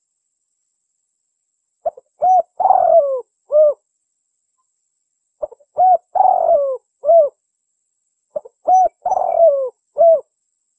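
Spotted dove cooing: three matching phrases a few seconds apart. Each is a short lead note, a coo, a longer wavering coo that slides down at its end, and a closing coo.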